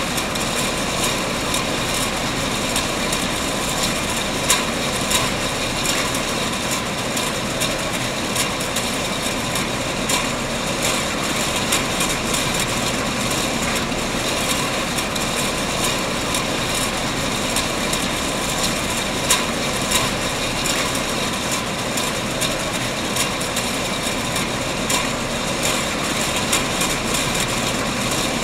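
Rotary can-filling machine running with a steady mechanical noise. Frequent sharp clinks come from metal cans knocking against each other and the rails as they feed along the conveyor.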